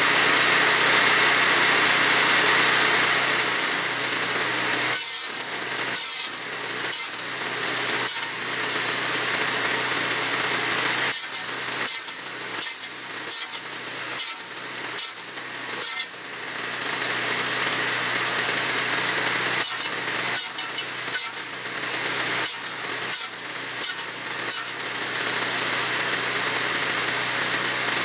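Vintage cordwood buzz saw, its 30-inch circular blade belt-driven by an 8 hp Tecumseh engine, running steadily. Through the middle it cuts slab wood into firewood lengths, the steady running broken by repeated short knocks.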